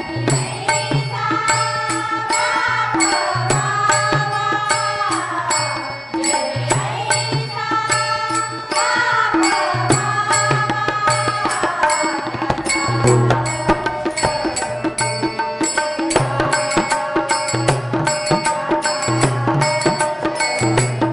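Marathi devotional bhajan: women's voices singing long gliding phrases over a harmonium, with tabla and small brass hand cymbals (taal) keeping a steady beat.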